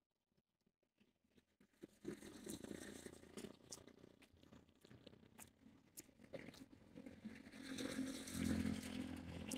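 Rustling, crackling noise of walking with a handheld phone recording, starting about two seconds in and growing louder near the end.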